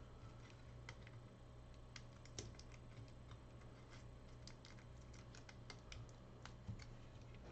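Faint, irregular light clicks and taps over a low steady hum, from small tools and parts being handled on a repair bench.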